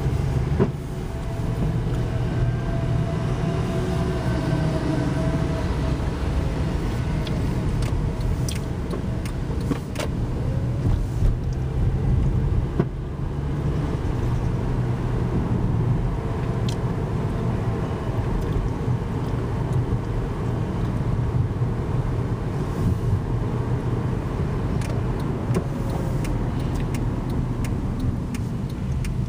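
Steady engine and road noise of a moving car heard from inside the cabin, a continuous low rumble with a few small clicks.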